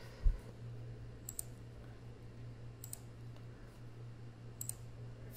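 Three faint double clicks at the computer, about a second and a half apart, over a low steady hum; a soft thump just after the start.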